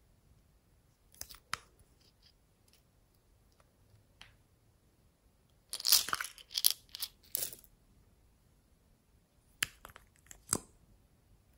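Small plastic cases and caps being handled and opened: scattered sharp plastic clicks and crackles, two about a second in, a dense run of them around the middle, and two more near the end.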